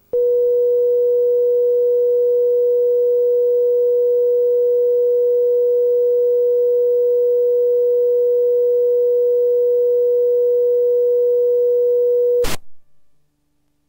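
Television station's steady line-up test tone broadcast with the colour bars at closedown: one unwavering pure tone that cuts off abruptly with a click about twelve seconds in.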